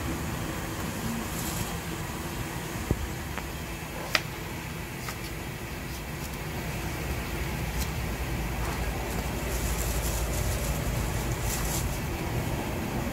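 Steady low background rumble, swelling a little in the second half, with two sharp knocks about a second apart of a cleaver striking a thick wooden chopping block.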